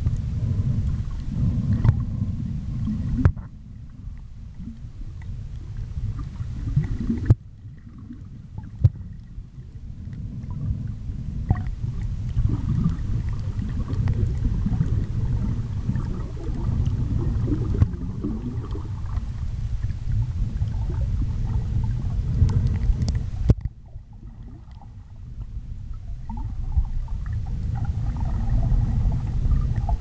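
Muffled underwater water noise: a steady low rumble and sloshing of moving water, which drops away suddenly three times and builds back up over a few seconds.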